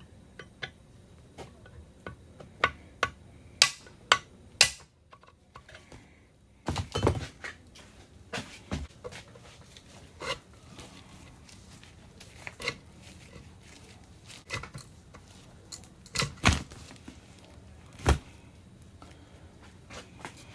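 Steel transmission parts and hand tools clinking and knocking at irregular intervals as a T-90 gearbox is being taken apart, with a few sharper metal strikes among lighter clinks.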